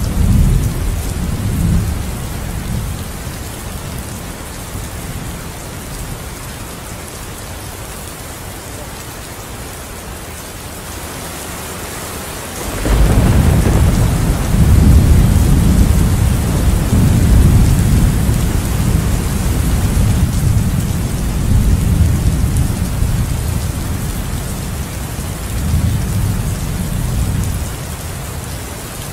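Steady rain with thunder: a low rumble dying away over the first few seconds, then a sudden loud thunderclap about 13 seconds in that rolls and rumbles in several swells for some fifteen seconds before easing near the end.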